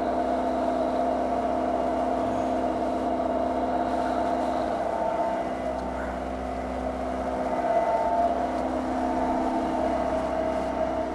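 Milling machine running and cutting an aluminium plate: a steady machine hum with a few held tones that shift slightly in pitch and loudness partway through as the cut goes on.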